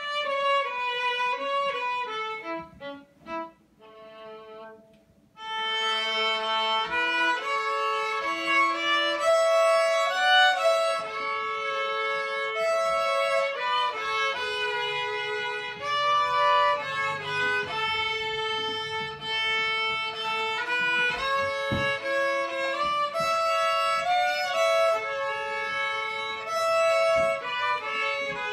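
Solo violin played with the bow by a young student, a melody of held and moving notes. A few seconds in the playing turns quieter and broken up, then carries on steadily.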